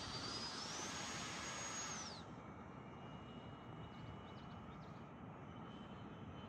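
The Freewing J-10's 90mm electric ducted fan whining as the RC jet flies. The pitch rises slightly, then drops steeply about two seconds in as the sound falls away to a fainter, steady whine.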